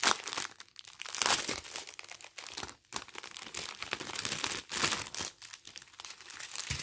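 Small clear plastic bags of diamond-painting rhinestones crinkling as they are handled, in irregular bursts of crackle.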